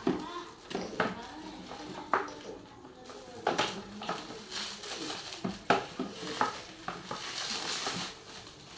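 Packaging and plastic table parts being handled and pulled open by hand: rustling and scraping with a series of sharp clicks and knocks.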